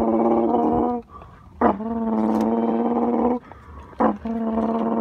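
Toy-truck engine noise: a buzzy, engine-like drone held at one steady pitch, sounding in three stretches with short breaks. The second and third stretches each open with a brief sharp rise, like a rev.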